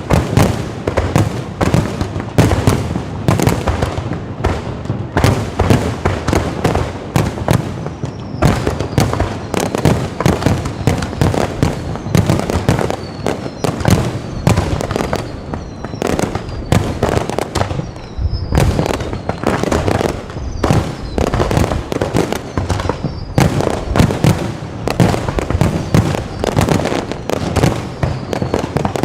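Low-altitude fireworks display: a dense, continuous barrage of shells bursting, several bangs a second, with a few short falling whistles mixed in.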